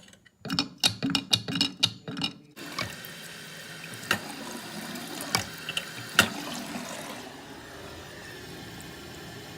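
A few sharp knocks and clunks, then a toilet flushing and its tank refilling with a steady rush of water. The refill goes through a worn fill valve that fills the tank very slowly.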